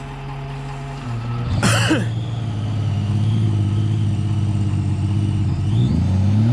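Vehicle engine running under light load, its pitch dropping about a second in and rising briefly near the end. A short loud noise cuts across it about a second and a half in.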